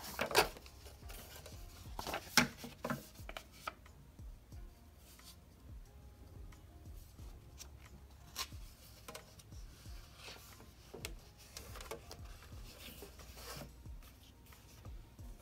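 Paper sheets being handled and punched on a TruBind coil binding machine: scattered sharp clacks with soft paper rustling between them, the louder clacks in the first few seconds.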